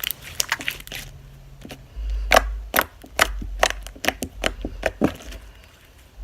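Thick white slime being squished and poked by hand, giving a run of irregular sharp clicks and pops, with low handling thuds from about two to five seconds in.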